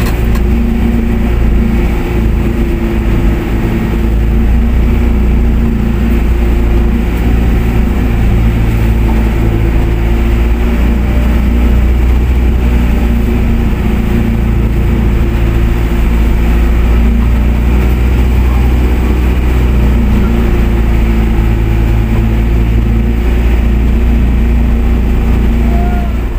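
Outrigger fishing boat's inboard engine running steadily, a loud low drone, with a hiss of wind and water above it.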